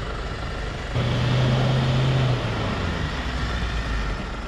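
Ford Ranger's engine running under load as the bogged ute is winched up out of a creek hole, its steady low note growing louder about a second in and easing off after about two and a half seconds.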